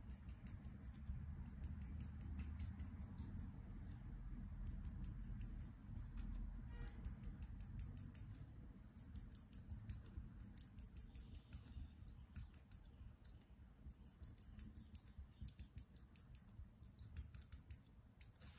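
Copic marker nib scratching over paper in rapid short strokes, a faint dry scratching that comes in runs with short pauses.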